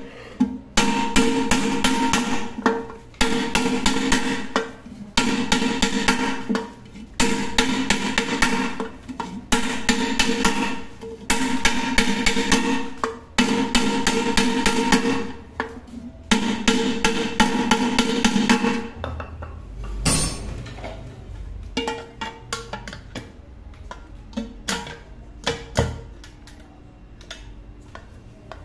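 Background music with a steady percussive beat, in repeating phrases on the same notes; it stops about two-thirds of the way in, leaving a few light clicks and knocks.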